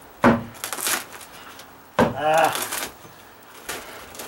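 Hammer blows on a rotted OSB plywood deck edge: two sharp strikes about two seconds apart, each followed by the cracking and splintering of the soft, rotten wood.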